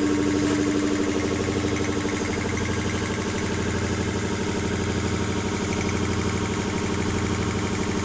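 Belt-driven piston air compressor running steadily, with a fast, even pulsing from the pump. A steady hum that is present at the start fades away within the first second or two.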